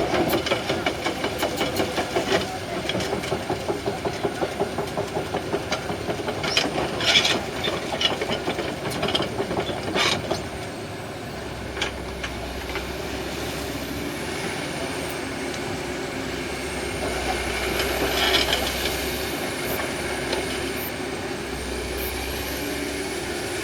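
Excavator's diesel engine working hard with a fast pulsing beat and sharp knocks for about the first ten seconds. It then settles to a steadier run while a faint high whine rises and falls in pitch several times.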